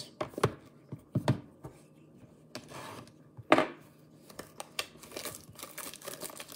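Cardboard trading-card boxes knocking and being set down on a table, with the loudest knock about three and a half seconds in. From about five seconds in, the plastic shrink wrap on a sealed box crinkles and tears as it is peeled off.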